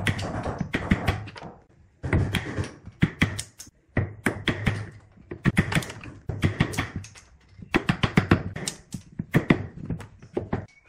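Wooden mallet striking a wood-handled chisel, driving it into a round wooden block to cut and split it along marked radial lines. Repeated sharp knocks in quick runs, with short pauses between runs.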